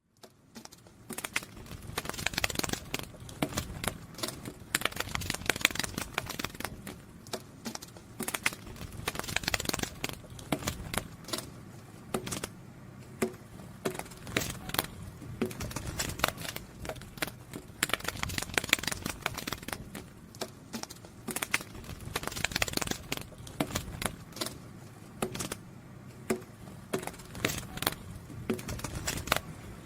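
Butterfly wings fluttering close to the microphone: dry, irregular clicking and rustling that thickens into busier bursts every few seconds.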